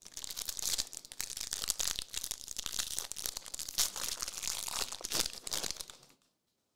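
A trading-card pack wrapper being torn open and crinkled by hand, a dense crackling that stops about six seconds in.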